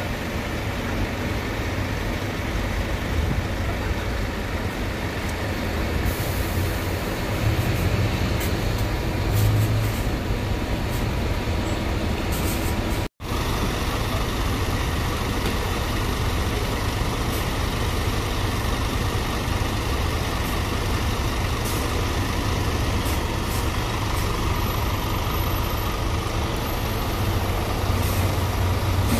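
City bus diesel engines running in street traffic, a steady low rumble, with a short high hiss about six seconds in.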